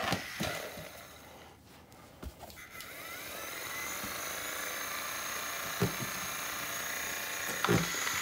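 Small electric motor of a Sawfish basswood bar-spinner robot kit spinning its wooden weapon bar up through a rubber-band drive: a rising whine about three seconds in that settles into a steady high whine. A few knocks come before and during it.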